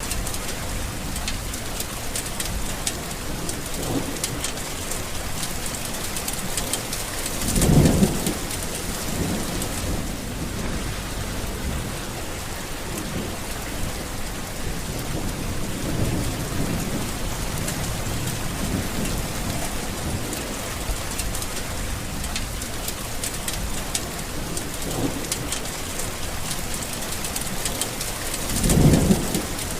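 Tropical rainstorm: steady rain with rolls of thunder, the two loudest rumbles coming about a quarter of the way in and near the end.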